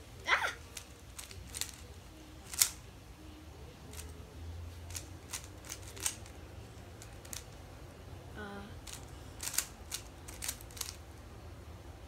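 Rubik's cube being turned by hand: irregular clicks and snaps of the layers turning, loudest about half a second and two and a half seconds in, with a quick run of clicks about nine and a half to eleven seconds in. A brief vocal sound comes about eight and a half seconds in.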